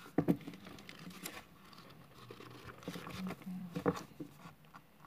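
Paper pages of a book being turned by hand: soft rustling with a few sharper flicks, the loudest just after the start and again about four seconds in.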